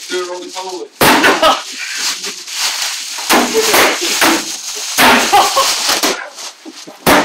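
Empty plastic water-cooler bottle swung like a bat into a person wrapped in plastic sheeting: several loud, sudden smacks a second or two apart, among voices.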